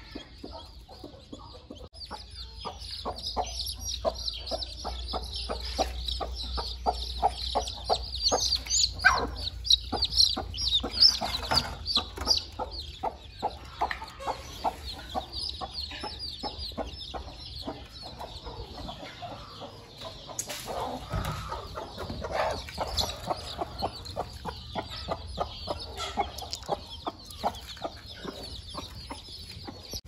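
Native country (nati koli) hen clucking over and over while her newly hatched chicks peep in rapid high chirps.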